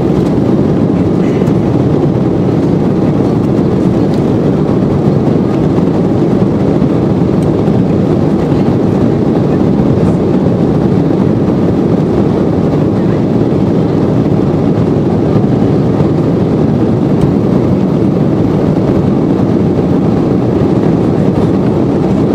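Steady, deep rushing cabin noise inside an Embraer 190 airliner in flight: its GE CF34-10E turbofan engines and the airflow over the fuselage, even and unbroken.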